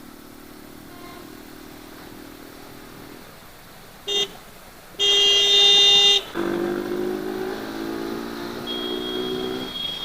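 Vehicle horns in road traffic, heard from a moving motorcycle. A short toot comes about four seconds in, then a loud horn blast lasting about a second, followed by a lower steady droning tone for a few seconds over the hum of the traffic.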